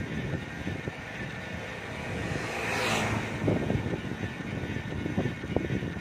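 Ride noise from a bicycle on the move: a constant low rumble with irregular knocks and rattles. A rushing hiss swells up and fades about halfway through.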